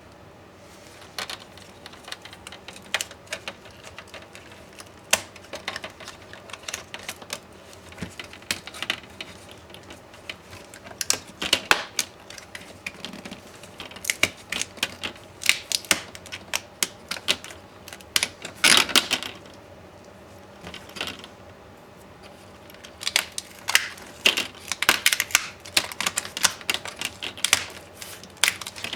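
Hands taking apart an MSI GT72VR gaming laptop with small tools: irregular sharp clicks, taps and scrapes of plastic and metal parts and screws, coming in busy clusters with short pauses between.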